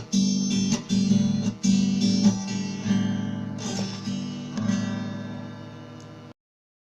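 Instrumental ending of a song on strummed guitar: a few chords, then a last chord left ringing and fading. The track cuts off abruptly about six seconds in.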